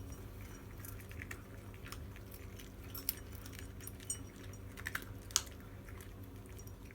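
Cats eating from their food bowls: wet chewing with small irregular clicks and crunches, a few sharper ones near the middle and end.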